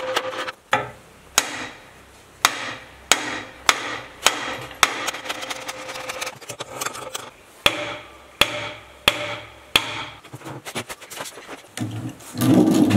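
Hammer tapping metal generator parts, the fan-end housing and the pulley, into place during reassembly. It strikes about a dozen times at a steady pace of roughly three blows every two seconds, each blow ringing briefly. A heavier, lower knock comes near the end.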